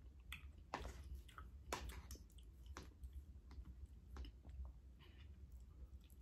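Faint, scattered clicks and soft mouth sounds of someone eating ice cream: a metal spoon scraping ice cream out of a pint tub and going into the mouth, about a dozen small ticks spread over several seconds, with a steady low hum underneath.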